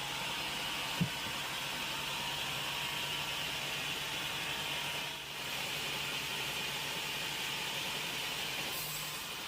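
Sawmill machinery running steadily, a constant mechanical hum under a bright hiss, with a single low knock about a second in.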